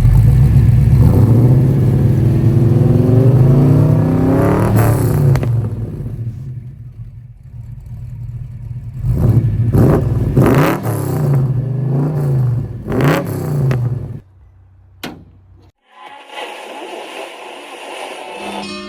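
Car engine being revved repeatedly, the pitch rising and falling with each blip of the throttle, then cutting off a few seconds before the end.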